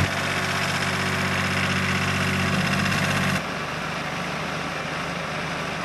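Stump grinder's diesel engine running steadily, with a hiss above the engine note; about a third of the way in the sound drops suddenly to a quieter, rougher running as the footage cuts.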